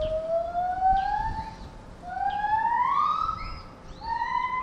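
A chimpanzee calling: three drawn-out calls, each rising in pitch, with short pauses between them.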